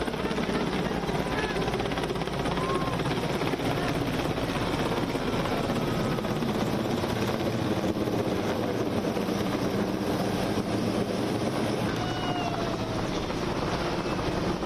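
Military helicopter flying overhead, its rotor and engine noise running steadily throughout.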